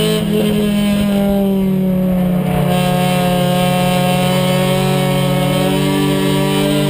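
Race car engine heard from inside the cockpit, running hard at steady revs. From shortly after the start the higher part of the sound drops away for about two seconds, then it comes back and the engine note drifts slowly in pitch.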